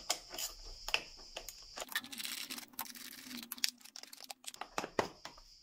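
Hand ratchet with socket clicking in short runs as the bolts of the scooter's belt-drive cover are unscrewed, with small taps of tool on metal. A longer rasping run of the ratchet about two seconds in.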